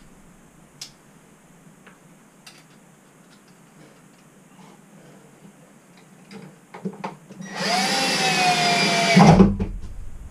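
Cordless drill driving a screw through a metal bracket into wood: a few light clicks and taps, then the motor whines for about a second and a half with its pitch sagging slightly under load, ending in a low thump as it stops.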